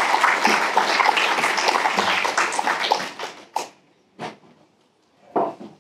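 Audience applauding. The clapping dies away about three and a half seconds in, and two brief, isolated sounds follow.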